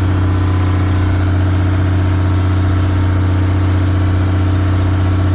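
Boat engine running steadily at a constant low hum.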